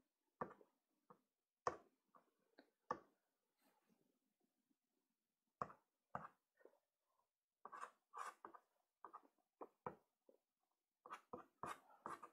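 Soft pastel stick being stroked and dabbed on sanded pastel paper: faint, short separate strokes, with a pause of a couple of seconds about a third of the way in and a quicker run of strokes near the end.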